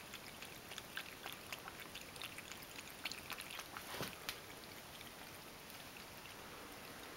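Ragdoll cat lapping water from a bowl: faint, quick wet ticks, several a second, thinning out in the second half. There is one louder knock about four seconds in.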